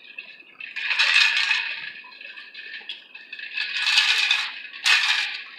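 A drink sipped through a straw from a glass: a few noisy bursts of slurping and rattling in the glass, loudest about a second in and around four seconds in.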